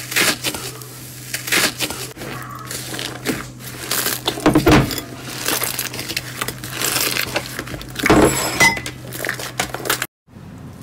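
Fluffy slime being pressed, squeezed and stretched by hand, giving irregular sticky crackling and popping as air pockets burst. A faint steady hum runs underneath.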